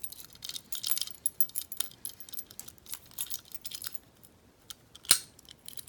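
Metal warded picks jingling and clicking against a padlock as a wide warded pick is worked in its keyway, with one sharp metallic click about five seconds in.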